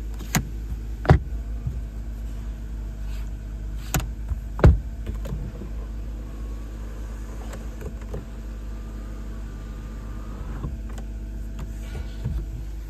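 Sharp clicks and knocks as the sun visor and its vanity mirror cover are handled. Then an overhead console switch is pressed and the Genesis G90's power sunroof mechanism runs with a faint whine for about four seconds before stopping with a soft clunk, over a steady low hum.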